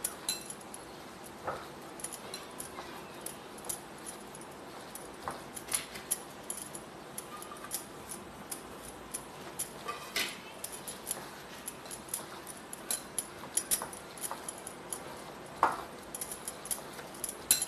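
A hand kneading coarse-ground horse gram batter with chopped onion in a glass bowl: faint rustling of the grainy batter with scattered, irregular clicks and taps against the glass.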